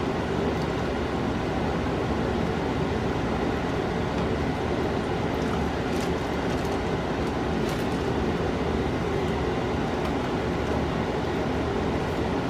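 Steady rumbling noise at an even level, with a few faint clicks about six and eight seconds in.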